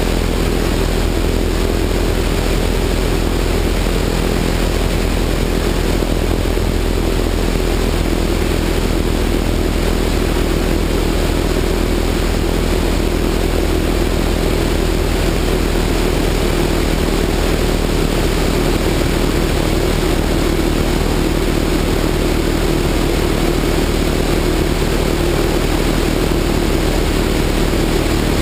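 Open-cockpit biplane's engine and propeller droning steadily in cruise flight, with a constant rush of wind and propeller wash over the wing-mounted microphone.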